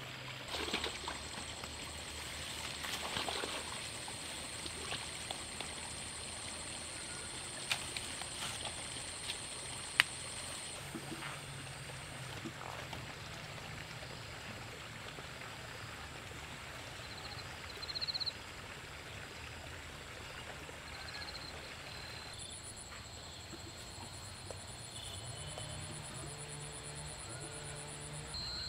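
Swamp ambience: frogs and insects calling, with a steady high-pitched buzz and a fast pulsing call near the end, over water trickling. A few knocks and splashes come in the first few seconds, and there is one sharp click about ten seconds in.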